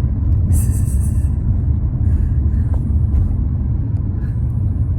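Steady low rumble of a car on the move, heard from inside the cabin: road and engine noise. A brief high-pitched rattle comes about half a second in.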